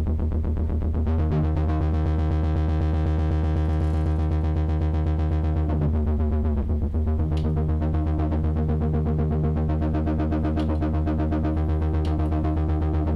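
Kurzweil PC3 synthesizer playing a pulse-width-modulation patch through its synth distortion effect: held bass notes and chords with a fast even pulsing in the tone. The notes change about a second in and again around six to seven seconds in.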